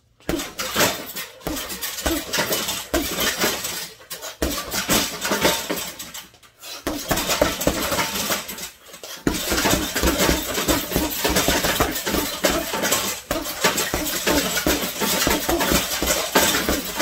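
Gloved punches landing in rapid combinations on a hanging Everlast heavy bag, the bag's hanging chain jangling and clinking with the hits. The flurries break off briefly about 4 and 7 seconds in and again near 9 seconds.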